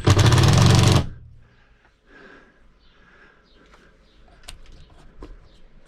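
A power driver runs in one rapid rattling burst of about a second, tightening a mounting bolt on the rooftop A/C unit. Faint light clicks and handling sounds follow.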